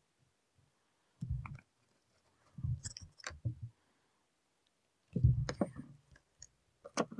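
Small knocks and clicks from handling a black plastic enclosure on a cutting mat while small magnets are pressed into the holes in the case: a soft knock about a second in, a few more around three seconds, a louder cluster just after five seconds and a sharp click near the end.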